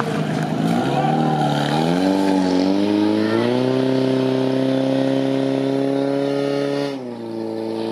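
Portable fire pump engine revving up in steps to a high, steady pitch and held at full throttle to drive water through the attack hoses, then dropping in pitch about seven seconds in.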